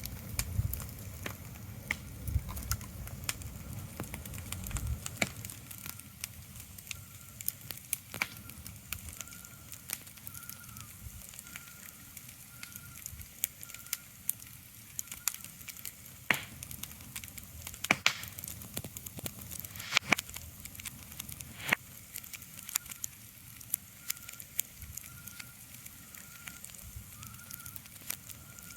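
Ambient crackling: irregular sharp pops and crackles over a soft hiss, with a faint high chirp repeating in the background. A low rumble fades out in the first few seconds.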